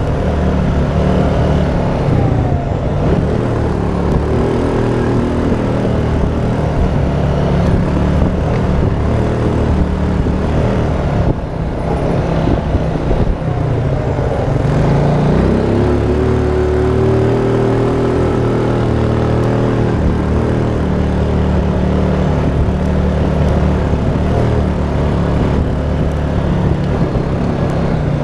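Honda Rancher ATV engine running while riding, heard from the machine itself. Its pitch holds steady, dips briefly, then rises about halfway through and stays higher as it picks up speed.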